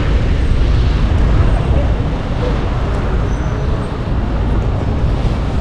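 City traffic noise with a steady low rush of wind on the microphone of a bicycle riding along the street.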